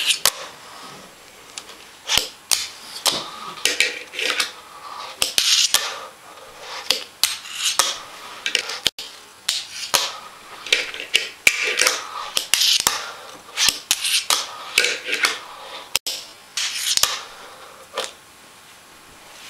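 Fingerboard being flipped, popped and landed on a wooden tabletop and ground along a small metal rail: a quick run of sharp clacks of the deck and trucks hitting the wood, with short metallic scrapes and wheel rolls between them. The clatter stops near the end.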